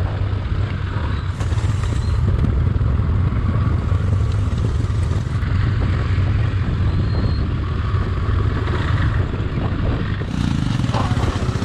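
Motorcycle engine running steadily, a constant low drone with some clatter over it.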